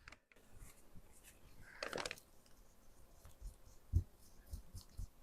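Quiet close-up handling noises of hands working on a lamp: a scraping rub about two seconds in, then a few soft knocks near the end.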